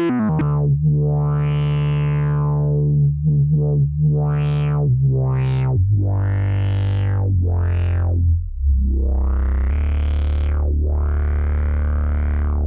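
Moog Subsequent 37 analog synthesizer playing a held bass line, its filter sweeping open and closed over and over so each note brightens and darkens. The bass note steps down in pitch a few times, around six, seven and a half, and eight and a half seconds in.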